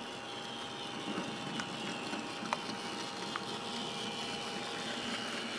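Small electric motor of a Graham Farish N gauge Class 08 model shunter whirring steadily as it hauls a heavy rake of loaded hopper wagons along the track, slowly getting a little louder as it comes closer, with a few faint clicks.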